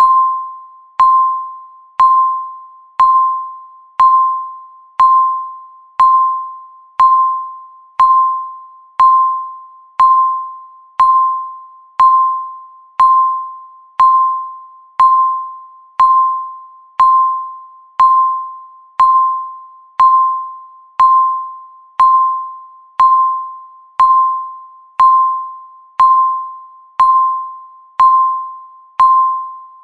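Countdown timer beeping once every second with a single pitched electronic tone; each beep starts sharply and fades away before the next.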